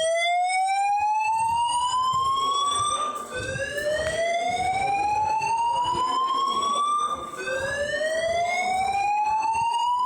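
Building fire alarm evacuation system sounding its slow-whoop tone: a loud siren-like sweep that rises in pitch over about four seconds, drops back and repeats, about two and a half whoops here. It is the evacuation signal played between repeats of the spoken order to leave the building.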